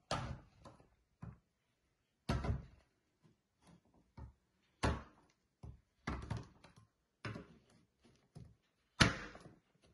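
Large kitchen knife chopping a bar of dark chocolate on a wooden cutting board: about six heavy thunks, one every second or two, as the blade cuts through and strikes the board, with lighter knocks in between.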